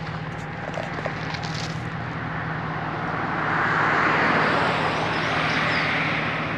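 A vehicle passing on the road: its tyre and engine noise swells to a peak about four seconds in and then eases off. A steady low hum runs underneath.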